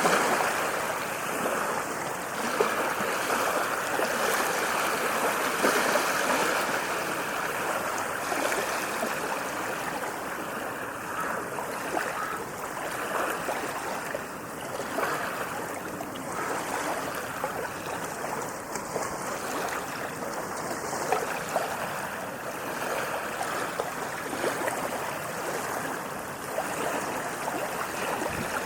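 Waves washing on a sandy beach: a steady rush of water that rises and falls only slightly in loudness.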